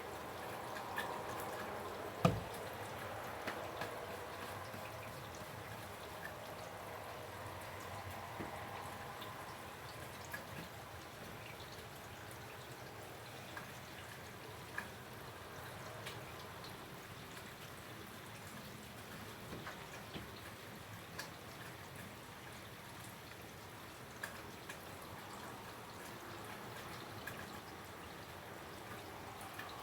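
Steady rain falling, with scattered drips and one sharper tap about two seconds in.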